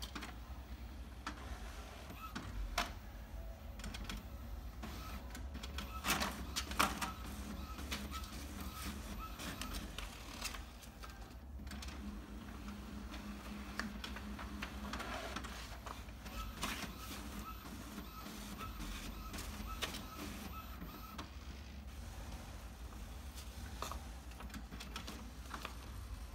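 Inkjet printer printing a page: clicks and clunks of the paper feed, with the print head mechanism whirring in several separate stretches.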